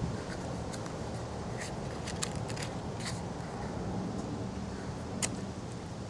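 Wind rumbling on the microphone, with a scatter of small sharp clicks and cracks as cedar kindling sticks are handled among lumps of forge coal. There is a quick run of clicks about two to three seconds in, and the loudest single click comes about five seconds in.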